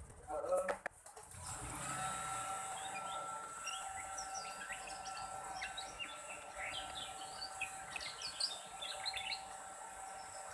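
Young black-red canary twittering: a long run of short, quick chirps and little rising notes, busiest in the second half, with a few knocks about half a second in.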